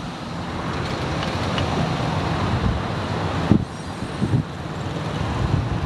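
Road traffic on a city street, with a vehicle going past close by: its noise builds for about three seconds, then there is a sharp knock and the noise drops off.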